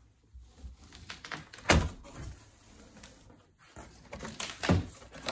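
Large cardboard box being opened by hand: cardboard flaps scraping and rustling with scattered clicks, and two loud knocks, one about two seconds in and one near the end.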